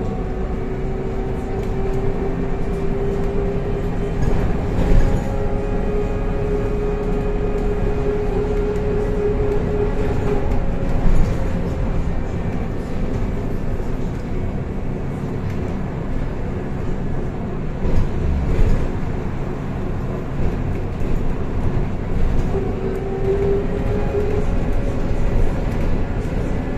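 BKM 321 trolleybus in motion, heard from onboard: a steady rumble of wheels and road, with the electric traction drive's whine rising slightly and holding through the first ten seconds, then coming back briefly near the end.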